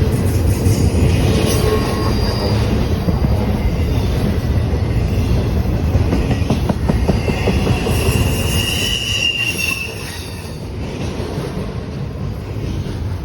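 BNSF intermodal freight train rolling past close by: a steady, loud rumble of the cars' wheels on the rails, with high-pitched wheel squeal. The squeal is loudest from about eight to ten seconds in, after which the rumble eases a little.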